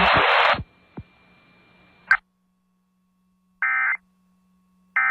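Emergency Alert System end-of-message data bursts: two short, buzzy digital bursts about 1.3 seconds apart, the second right at the end, marking the close of the monthly test. Before them a loud hiss of static cuts off about half a second in, and a sharp pop comes about two seconds in.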